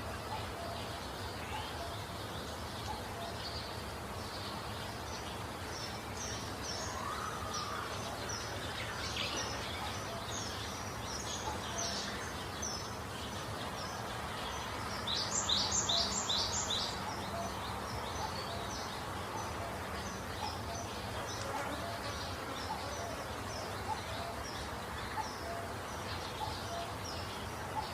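Small birds chirping: a steady run of short, high chips, with a louder burst of about five quick notes around the middle, over a steady background hiss.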